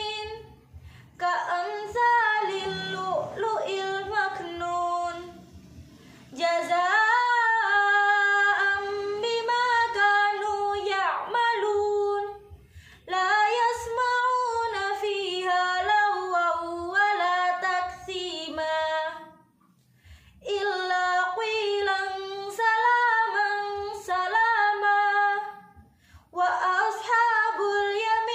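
A young woman's solo voice reciting the Qur'an in tartil style, unaccompanied. She chants in long drawn-out phrases with the pitch rising and falling along each one, broken by short pauses for breath.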